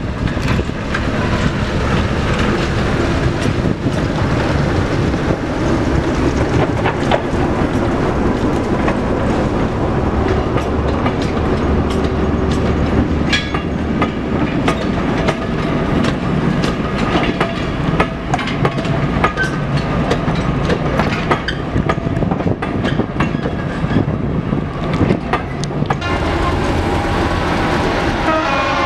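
Train of passenger coaches hauled past close by a diesel shunter: a steady rumble of engine and wheels with many sharp clicks as the coach wheels run over rail joints.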